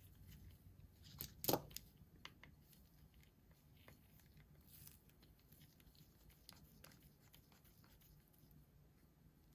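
Near silence with a few small handling clicks and taps, one sharper click about a second and a half in.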